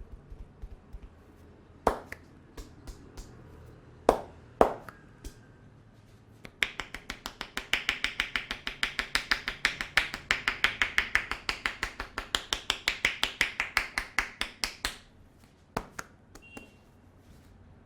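Hands striking a head during a head massage. A few single sharp slaps come first. Then a fast, even run of clapping strikes follows, about six a second for roughly eight seconds, before it breaks off into scattered taps.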